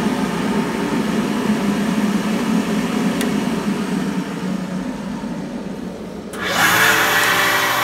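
Dayton single-stage dust collector running: a steady blower hum and rush of air that fades about five seconds in. About six and a half seconds in, a louder motor sound with a steady whine comes in suddenly: a Craftsman shaper running.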